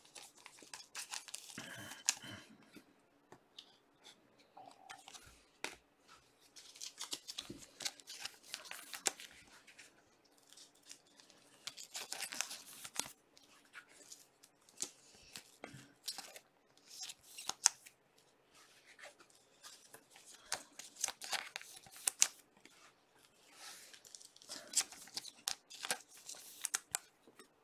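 Trading-card packs and cards being handled: wrappers crinkling and tearing open and cards sliding and clicking against each other, in several separate bursts of rustling.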